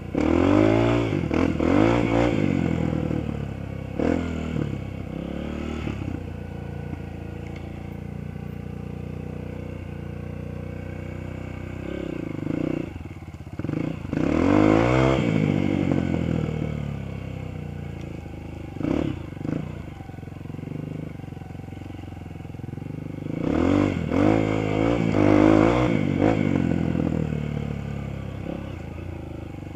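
Dirt bike engine riding a trail, revving hard in bursts near the start, about halfway and again later, with rising and falling pitch as it accelerates and backs off, and running at lower revs in between.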